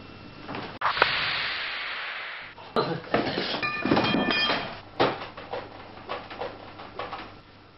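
A loud rushing hiss about a second in. It is followed by a burst of clattering knocks with a short ringing clink of glass, then scattered lighter bumps and knocks.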